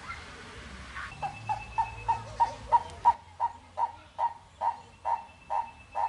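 An animal calling in a long, even series of short notes, about two to three a second, starting about a second in, with a faint thin high tone under parts of it.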